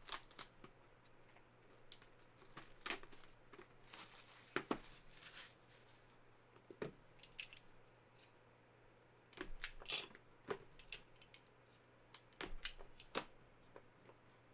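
Box cutter slicing into a sealed card box's packaging, with scattered sharp clicks, taps and rustles of cardboard and plastic being handled.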